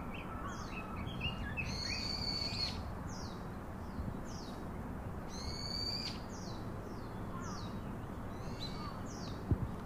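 Small birds singing: short high chirps that slide downward, repeating every half second or so, with a couple of longer song phrases, over a steady low background hiss. A brief soft knock near the end.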